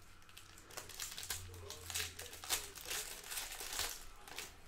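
Foil wrapper of a Panini Score football card pack torn open and crinkled by hand: a dense run of sharp crackles starting about a second in.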